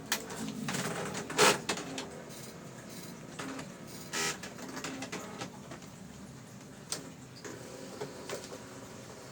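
Brother GX-6750 electronic daisy-wheel typewriter printing its built-in demo text: uneven runs of quick character strikes over a low motor hum, with a louder clack about a second and a half in and a longer one around four seconds in.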